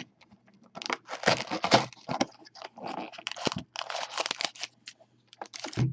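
Trading card packaging being torn open and handled: irregular crinkling, crackling and tearing of wrapper and card stock.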